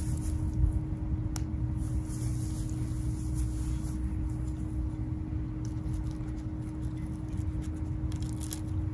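Steady low rumble with a constant hum, typical of outdoor background such as distant traffic or a running machine, with a few faint light clicks and taps.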